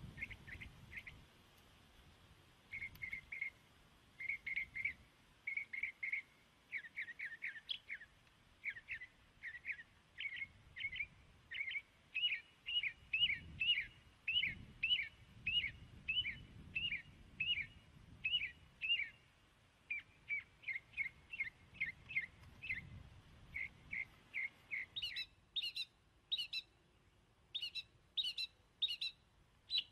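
A small bird chirping over and over in quick runs of short, downward-slurred notes. Near the end the chirps turn higher and sharper.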